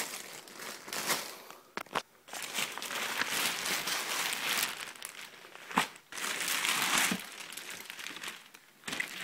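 Packaging being handled and crinkled in irregular bursts, with a few sharp clicks or snaps, about two seconds in and again near six seconds, as the parcel is unwrapped.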